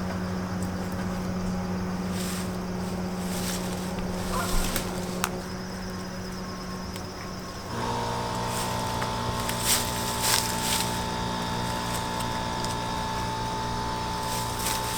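A motor running steadily with an even hum. About halfway through its tone shifts: a lower hum and a higher steady whine come in. A few sharp knocks sound over it.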